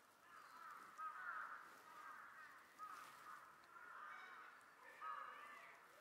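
A string of faint, short, chirping animal calls coming in quick clusters, loudest about a second in and again near the end.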